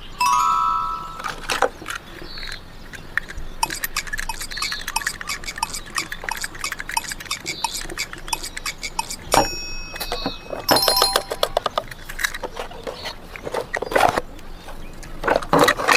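Plastic toy cars clicking and clattering over and over, with a short bell-like electronic toy tone just after the start and a buzzy electronic tone about ten seconds in.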